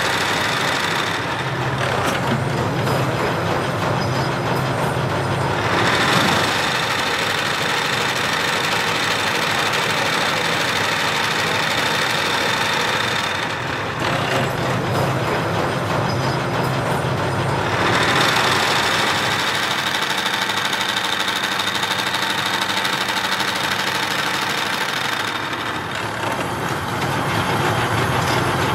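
Gear-hobbing machine running as it cuts splines into the end of a steel truck axle shaft: a continuous machine drone with a steady high whine. The sound shifts a little after a second in, again around halfway, and near the end, each time losing its high part while a low hum comes up.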